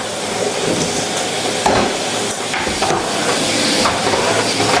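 Henry Micro vacuum cleaner running steadily on carpet: an even rushing hiss over a low motor hum, with a few brief knocks.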